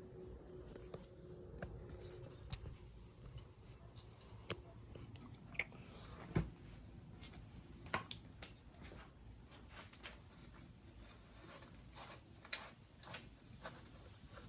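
Scattered light clicks and taps of small parts and tools being handled, with a duller knock about six seconds in.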